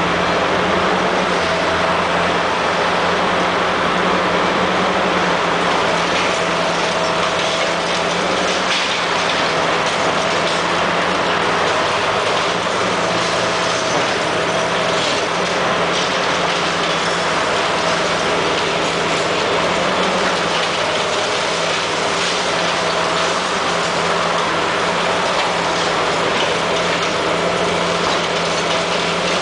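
Komatsu PC400 high-reach demolition excavator's diesel engine running steadily with a droning hum while its crusher jaws work the concrete, with a few faint cracks of breaking concrete and debris.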